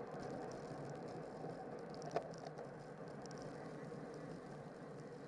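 Steady rushing of wind and tyre noise from a racing bicycle riding at speed in a pack, with a few faint high ticks and one sharper click about two seconds in.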